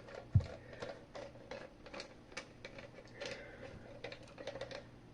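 Faint, irregular clicks and taps of a fire alarm's plastic housing and screws being handled, with one low thump about half a second in.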